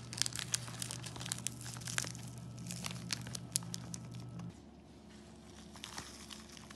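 Plastic instant-ramen wrappers crinkling as seasoning and sauce sachets are squeezed out into the opened noodle bag, with many sharp crackles that thin out about two-thirds of the way through.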